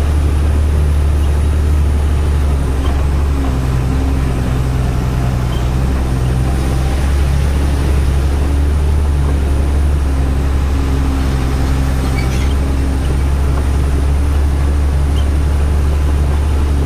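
Truck's diesel engine droning steadily from inside the cab while driving, a deep rumble with a low hum that wavers in and out over the road noise.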